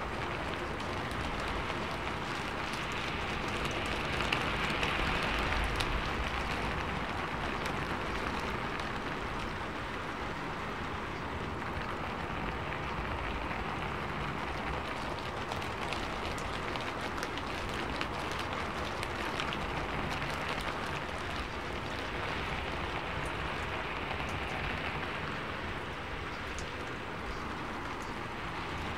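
Steady rain falling, an even hiss with faint scattered drop ticks, swelling slightly about four to six seconds in.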